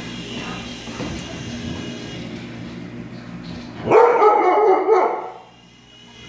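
Siberian husky giving a loud run of barks about four seconds in, lasting about a second and a half. Under it runs the steady whine of a small toy RC helicopter's motors and rotor.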